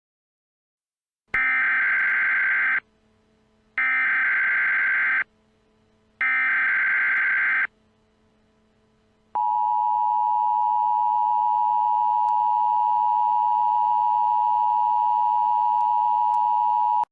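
Emergency Alert System tones: three bursts of SAME header data, each about a second and a half long with about a second between them. After a short pause comes the steady two-tone EAS attention signal, held for about eight seconds.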